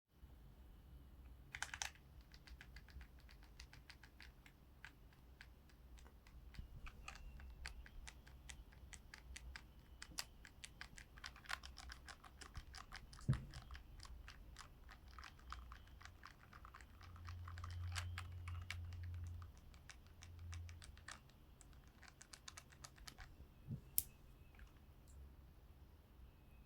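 Keycaps on low-profile mechanical keyboard switches clicking and rattling in quick irregular runs as they are wobbled and pressed. There is a sharper knock near the middle and another near the end, and a brief low rumble about two-thirds through.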